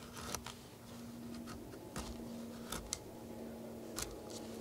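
A faint, steady drone of a jet aircraft passing overhead, the aircraft noise that keeps intruding on the forest quiet. A few sharp clicks are scattered through it.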